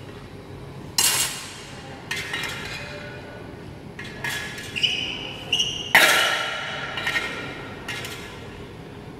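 Steel swords and a metal buckler clashing in sword-and-buckler sparring: a series of sharp metallic hits with ringing, some in quick pairs, the loudest about six seconds in.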